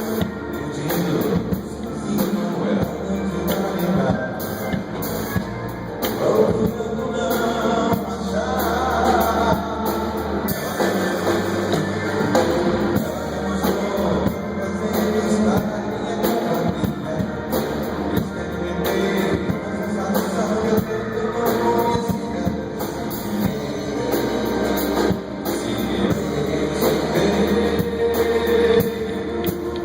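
Pop-rock band music with a drum kit and electric guitar playing a steady beat, continuous throughout.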